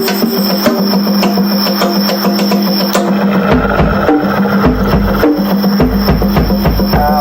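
Drum solo on a drum kit: fast, dense strikes on drums and cymbals, with heavy bass drum hits coming in about halfway through.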